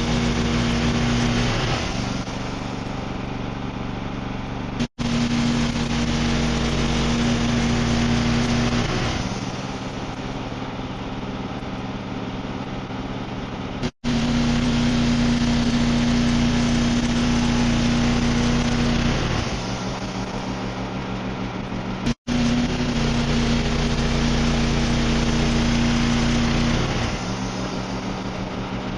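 Wood-Mizer portable band sawmill running: its engine hums steadily, alternating between louder stretches with a strong steady tone and the hiss of the band blade sawing through black walnut and quieter stretches in between. The sound breaks off abruptly three times.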